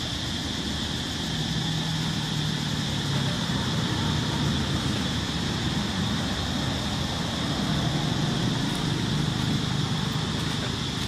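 Steady outdoor background: a constant high-pitched drone over a low, even hum, with no distinct events.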